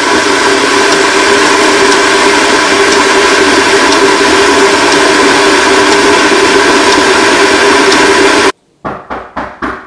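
Glass electric kettle at a rolling boil, a loud steady rushing noise, which cuts off suddenly near the end; then four quick knocks.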